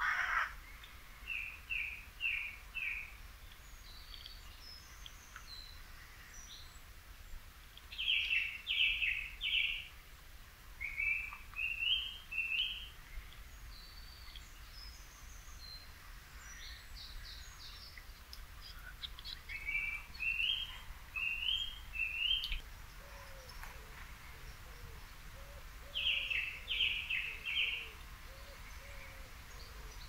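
Song thrush singing: loud short phrases, each repeated three or four times, in bursts with pauses between. Thin high chirps of smaller birds sit above it, and a fainter low repeated call joins underneath in the last few seconds.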